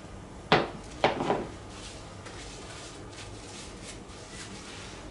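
Kitchen things handled and set down on a countertop: a sharp knock about half a second in, then two quick knocks about a second in, followed by faint light clicks.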